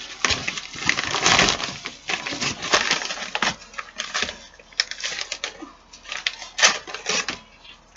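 Crinkling, rustling and tearing of packaging being handled and opened by hand, in irregular bursts with sharp crackles.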